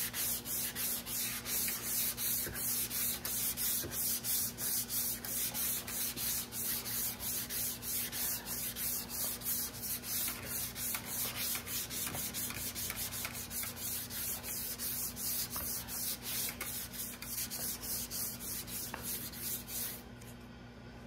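320-grit sandpaper rubbed back and forth by hand over polyester body filler on a truck panel, with light pressure, levelling the filler with the surrounding metal. The strokes are steady and even, about three a second, and stop near the end. A steady low hum runs underneath.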